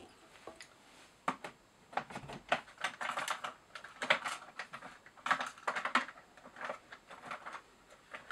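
Light clicks and rustles of small tools and materials being handled on a fly-tying bench, coming in irregular bunches.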